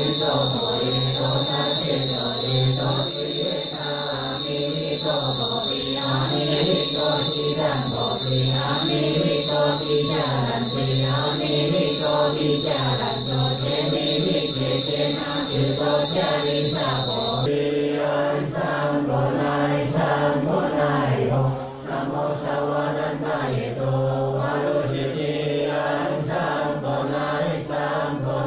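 Buddhist monks chanting a dharani together in a low, steady drone. A thin, steady high-pitched whine sounds underneath and cuts off about two-thirds of the way through.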